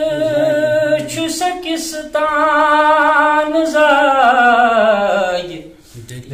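A man singing a Kashmiri poem unaccompanied, holding long notes with a wavering pitch. A long note slides downward and fades out about five and a half seconds in, and he takes up the next line just before the end.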